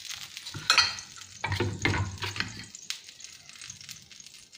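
Hot iron tawa crackling faintly on a gas burner, with a few clicks and knocks of handling at the stove, the loudest a bit after a second in.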